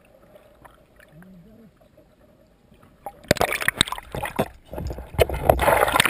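Water heard from a submerged action camera: muffled and quiet underwater at first, then loud splashing and sloshing from about three seconds in as the camera comes up at the surface beside a boat hull.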